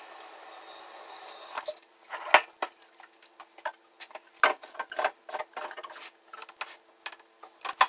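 Irregular clicks and knocks of plastic items being handled and set down at a kitchen sink, after a faint hiss of running water fades out in the first couple of seconds. A low steady hum runs underneath.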